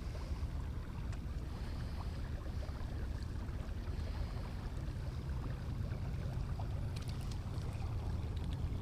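Steady low rumble of a fishing boat on the water, with a few faint ticks near the end.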